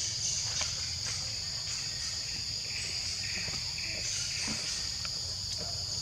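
A steady, high-pitched chorus of insects trilling without a break, with a few faint softer sounds underneath.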